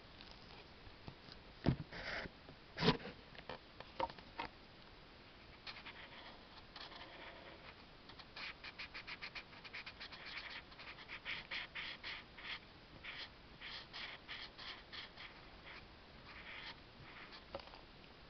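A marker drawing on paper: quick short strokes, several a second, from about eight seconds in to about sixteen. Two sharp knocks come about two and three seconds in.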